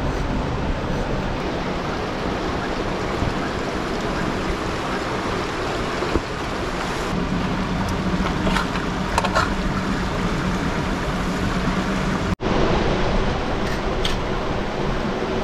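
Shallow river rushing over rocks, a steady hiss of flowing water, with a few faint clicks partway through. The sound briefly cuts out about twelve seconds in.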